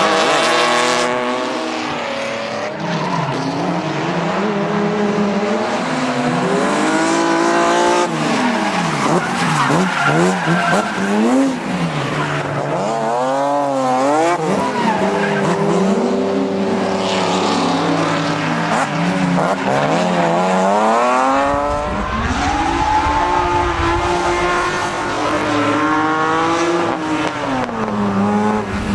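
Drift cars' engines revving hard, the pitch climbing and dropping again and again as the throttle is worked through slides, with tyres squealing. A deeper engine rumble joins about three quarters of the way through.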